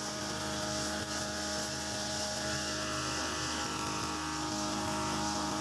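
Mitsubishi TU43 two-stroke brush cutter running steadily at working speed, its nylon line head trimming grass.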